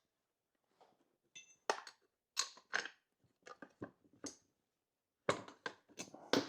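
Irregular metallic clicks and clinks, a few with a short ring, as a spark plug wrench is fitted and turned to take the spark plug out of a Homelite Super 2 SL chainsaw's cylinder.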